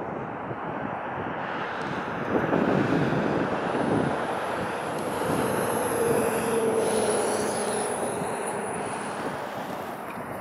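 Noise of a passing motor vehicle, swelling about two seconds in, holding with a steady engine tone through the middle, then fading.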